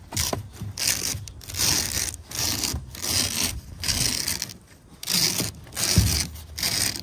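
Soft roll-up vinyl tonneau cover being rolled up by hand along a pickup bed's rails: repeated rustling, scraping strokes as the fabric gathers, with a low thump about six seconds in.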